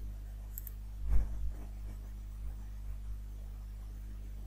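Low steady electrical hum on a quiet recording, with a soft click about a second in and a few fainter ticks after it, as a computer is operated with mouse and keyboard.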